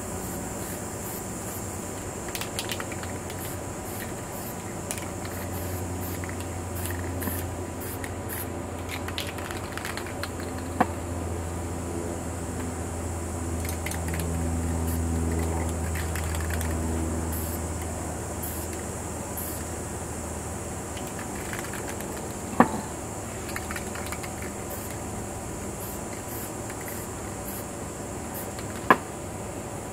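Aerosol spray paint cans hissing in short bursts, broken by a few sharp clicks or knocks. A low droning hum swells and fades in the middle.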